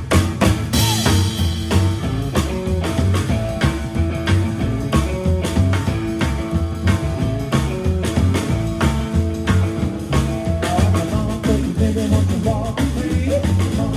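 Live rock and roll band playing: upright bass, drum kit keeping a steady beat, and electric guitar.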